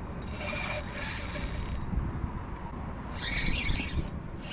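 Spinning reel working with a fish on the line: a stretch of mechanical buzzing from the reel lasting about a second and a half, then a shorter, softer one about three seconds in, over a steady low rumble.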